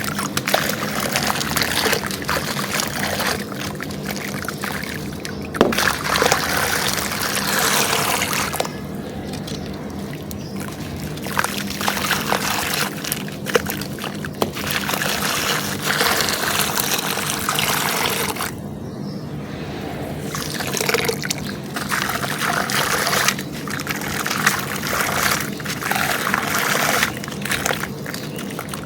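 Dry charcoal and clay pieces being crushed and crumbled by hand, a dense crunching crackle in long stretches with two short pauses.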